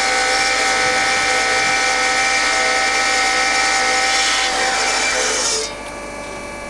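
MEP Shark 332 NC evo automatic bandsaw cutting through a piece of wood: a steady hiss of the blade in the wood over the whine of the running saw. About five and a half seconds in the cutting noise drops off sharply as the blade comes through the cut, leaving the saw running more quietly.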